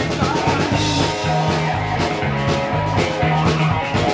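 Live rock band playing an instrumental stretch between vocal lines: electric guitars over a drum kit keeping a steady beat, with a repeating low bass line.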